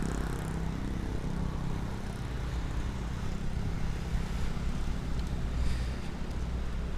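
Steady low rumble of motor traffic, with engines running nearby.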